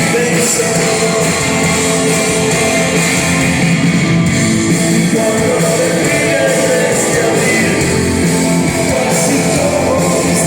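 Rock song played on electric guitar, with singing.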